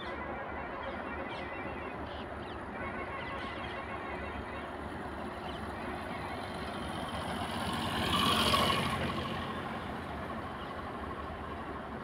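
A motor vehicle passing by, its noise swelling to a peak about eight and a half seconds in and then fading, over a steady background rumble.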